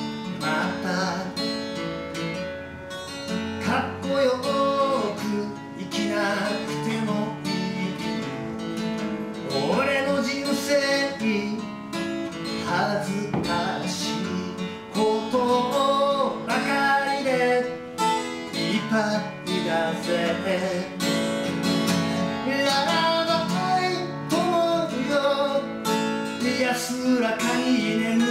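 Acoustic guitar strummed steadily, with a man singing a song over it in phrases.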